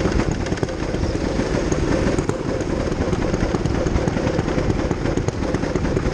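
Go-kart running at speed: a steady, loud rumble with a humming tone held through it.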